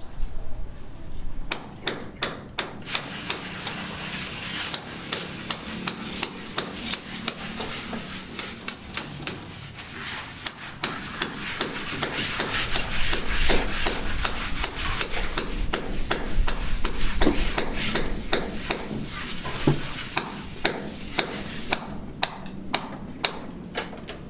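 Repeated hammer strikes on a building site, a sharp blow about two or three times a second, starting about a second and a half in.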